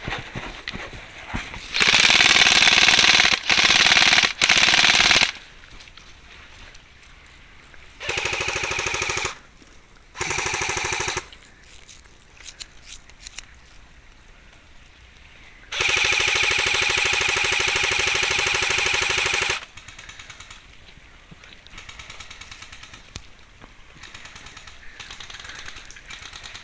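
Airsoft guns firing full-auto bursts of rapid, even shots. Three loud bursts come close together about two seconds in, two shorter ones follow around eight and ten seconds, and one long burst of nearly four seconds starts about sixteen seconds in.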